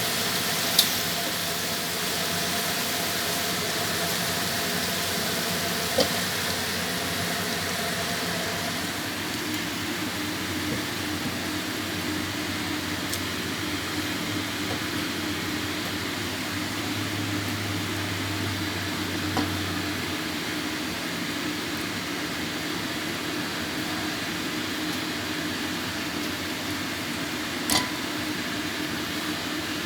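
Bok choy stir-frying in a pan with a steady sizzle, and a few sharp knocks of a utensil against the pan.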